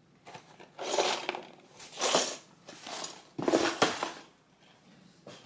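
Lego set boxes being handled and moved about: a run of about five rustling, clattering handling noises.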